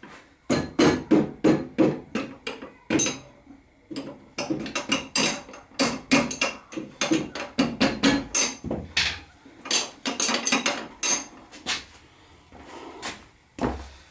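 Repeated hammer blows on a rod, driving the rear axle out of a 2002 Harley-Davidson Road King Classic's rear wheel hub. There are roughly two to three sharp knocks a second, with a short pause about three and a half seconds in, a gap near the end and then a few final blows.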